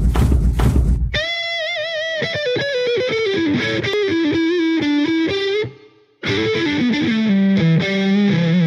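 Intro music: a distorted electric guitar plays a lead line with wide vibrato that steps downward, pauses briefly about six seconds in, then plays a second phrase that slides down at the end. It opens with about a second of heavy crashing hits.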